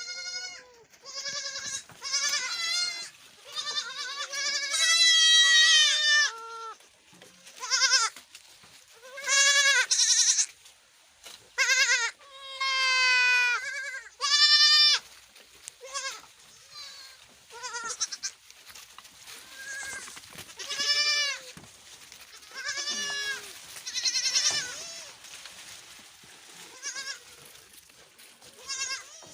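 Young goat kids bleating over and over in high, wavering calls, several voices at once, some calls overlapping. The calls are loudest in the first half and grow fainter and sparser toward the end.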